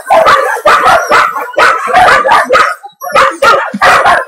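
Dogs barking repeatedly in quick succession, about two to three loud barks a second, with a short break about three seconds in.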